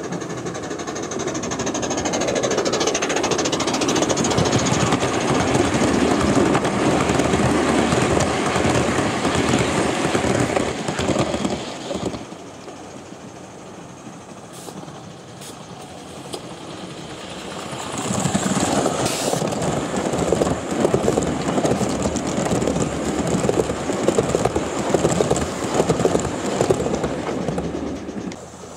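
Gauge 1 model train running along the garden railway track with a dense, rapid clatter. The clatter dies down about twelve seconds in and comes back about six seconds later.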